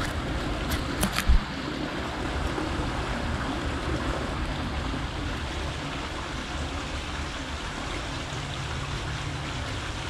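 Steady rushing noise, water-like, with a strong low rumble. About a second in come a few sharp knocks, the last and loudest a low thump.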